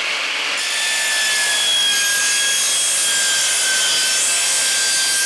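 Mitre saw cutting through an aluminium cable-duct profile: the motor is already running, and about half a second in the blade bites into the metal, giving a loud, steady cutting noise with a thin high ringing whine that lasts to near the end.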